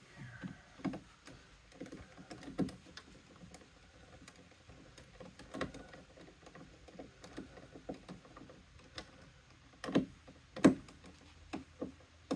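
Scattered light clicks and taps of hands handling the plastic wiring connector at a GM truck's windshield wiper motor, with two sharper clicks about ten seconds in.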